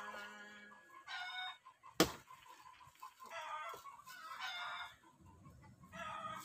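Chickens calling: several short, pitched calls spread over a few seconds. A single sharp knock sounds about two seconds in.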